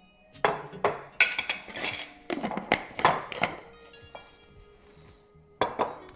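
A spoon and a metal measuring cup clinking and scraping as white sugar is emptied into a glass mixing bowl. There is a quick run of sharp clinks and knocks over the first few seconds and a couple more near the end, with background music underneath.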